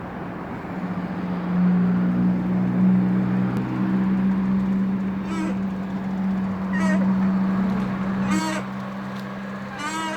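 Creaking from a VW Passat B5's worn front strut mount bearing: short squeaky groans repeating about every second and a half, starting about five seconds in. Under them runs a steady low hum.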